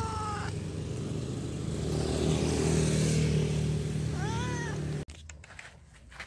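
Cat meowing: a long meow trails off, falling in pitch, just after the start, and a short meow rising and falling follows about four seconds in, over a steady low hum. The sound cuts off abruptly about five seconds in to a quieter background with a few soft knocks.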